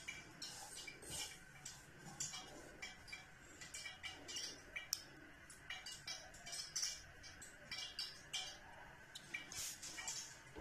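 Dry breadcrumbs rustling and crunching as a hand rolls a batter-coated vegetable ball through them in a glass bowl, in short irregular scratchy bursts, with one sharp click about five seconds in.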